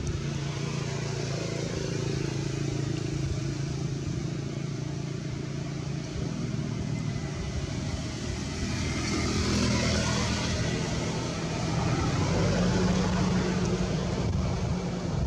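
A motor vehicle's engine running steadily, with a vehicle passing by about ten seconds in and the engine growing louder near the end.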